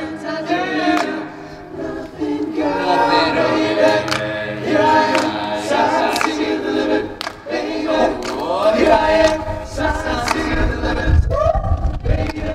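Background music: a song with several voices singing together, choir-like.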